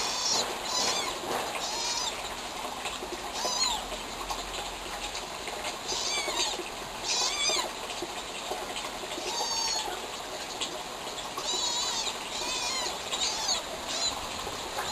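Small kitten mewing repeatedly, short high-pitched cries every second or so.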